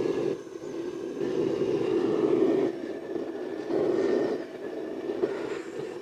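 Propane burner of a homemade crucible furnace roaring, surging and dipping unevenly in strength. It is running at a low, slow fire to cure the new furnace on its first firing.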